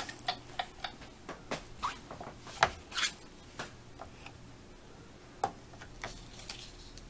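Scattered light clicks and taps of clear plastic cutting plates being lifted off and handled on a manual die-cutting machine's platform, thicker in the first half and sparse after.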